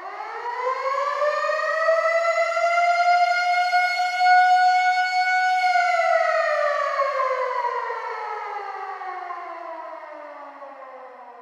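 Air raid siren sounding one wail: it winds up in pitch for about two seconds, holds a steady tone, then, about halfway through, slowly falls in pitch and fades away.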